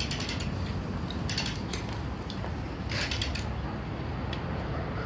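Hand-cranked crane winch ratcheting: three short bursts of rapid clicking about a second and a half apart, then a single click, over a low steady hum.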